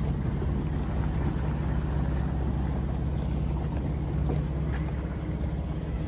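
Engine running steadily with a low, even drone over a wash of background noise.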